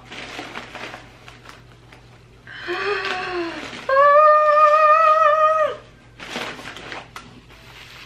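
Rustling of a fabric dust bag and paper wrapping as a belt is pulled out. In the middle comes a wordless excited vocal sound: a short falling 'ooh', then a high squeal held steady for about two seconds, the loudest sound.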